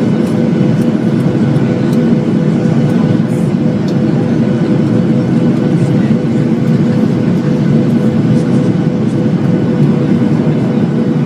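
Airliner cabin noise: the engines and rushing air run steadily, with a constant hum through it.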